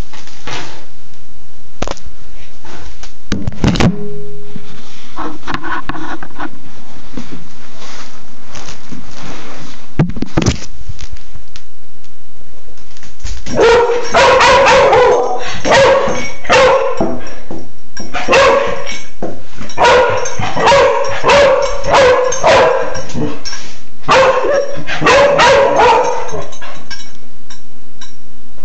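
A dog barks excitedly, many barks in quick succession, in long runs from about halfway through. The first half holds mostly scattered knocks and thumps, with a few short sounds.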